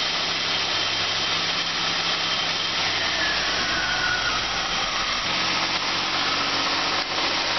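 1984 Oldsmobile Cutlass Ciera's carbureted engine idling steadily as it warms up, its note shifting about five seconds in. The engine has burned crankshaft and rod bearings and is beginning to develop a rod knock as it warms.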